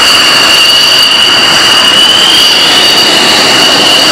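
F-16 fighter jet's engine running at taxi power as the jet rolls past: a loud, steady rushing noise with two high, steady whining tones.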